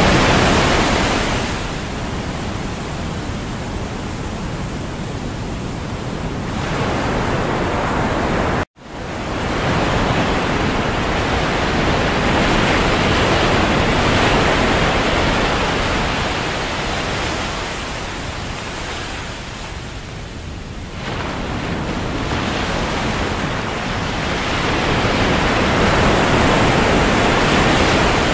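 Ocean surf washing onto a sandy beach: a steady hiss of breaking waves that swells and ebbs every few seconds. It cuts out for an instant about nine seconds in.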